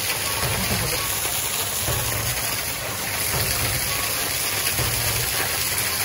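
Steady rush of water from a waterfall and the stream running over the rocks below it, an even hiss with no breaks.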